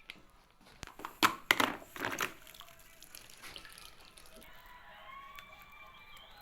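Water splashing in a few loud bursts between about one and two and a half seconds in, then quieter.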